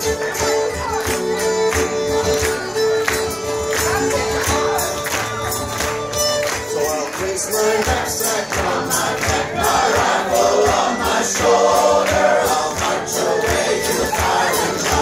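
Live string band music led by a fiddle, over a steady percussive beat.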